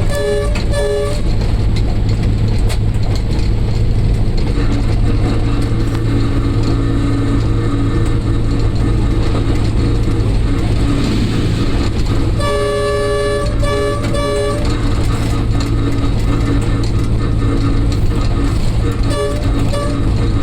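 Diesel locomotive running with a steady low drone, its multi-tone horn sounding in short blasts: a few at the start, a longer series of short blasts about twelve seconds in, and a couple more near the end.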